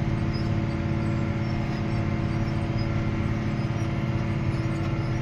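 John Deere 7290R tractor's diesel engine running steadily under load while pulling a chisel plow through hard, compacted ground.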